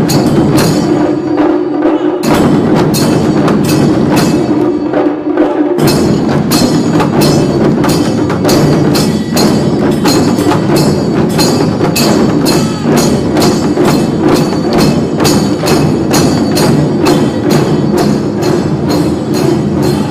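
Wadaiko ensemble playing a fast, steady beat of sharp strikes over a sustained tone. The deep drum hits drop out twice in the first few seconds, leaving the higher clicking strikes, then come back in.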